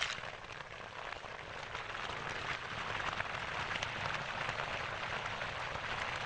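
Sound effect of an animated logo reveal: a dense, steady crackling hiss made of many fine ticks, swelling slightly toward the end.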